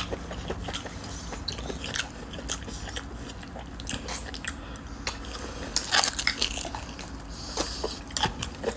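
Close-miked eating: wet chewing and lip-smacking on spicy beef-feet (faya) curry and its bones, a steady run of short, sharp mouth clicks and smacks that is busiest in the second half.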